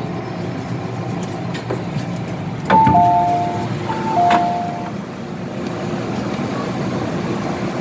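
MTR M-Train door chime: a two-note falling ding-dong sounded twice as the car doors open, over the steady hum of the train.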